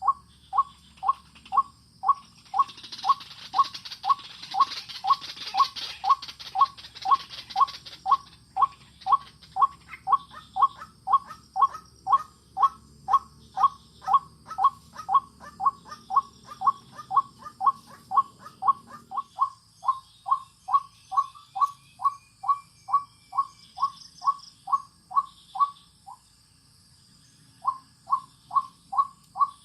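White-breasted waterhen calls, a monotonous 'ruak' note repeated very evenly about twice a second, with a pause of a second or so near the end. A brief rustling hiss runs under the calls early on.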